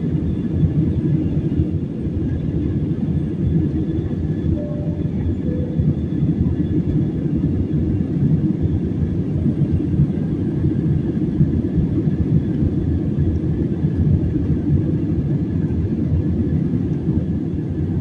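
Cabin noise of an Airbus A320-family airliner climbing after takeoff: a steady deep rumble of jet engines and rushing air, with a faint steady hum higher up.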